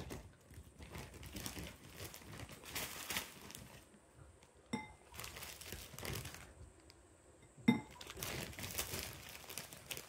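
Ice cubes dropped one at a time into a glass bowl: two sharp clinks with a short glassy ring, about five and eight seconds in, between stretches of scrabbling handling noise.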